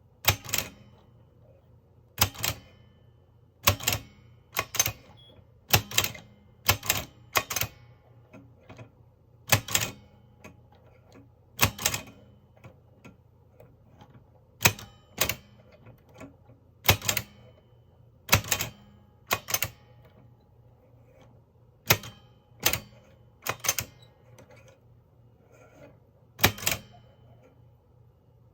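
Mignon Index Typewriter No 4 typing slowly: sharp mechanical clacks of its type element striking, often in quick pairs, with pauses of a second or two between them while each letter is picked on the index plate.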